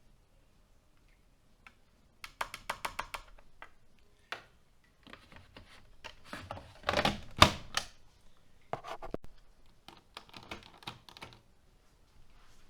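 Sharp mechanical clicks and light knocks: a quick run of about eight clicks in the first few seconds, the loudest knocks about halfway through, then scattered clicks.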